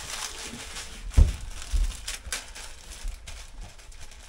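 Plastic instant-noodle packet crinkling and crackling as it is handled over the pot, with a sharp thump about a second in.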